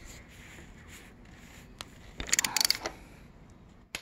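A ratchet spanner clicking in a quick run of about half a second, a little past halfway, with a single click near the end, while the bolt of a frame-mounted crash bobbin is worked.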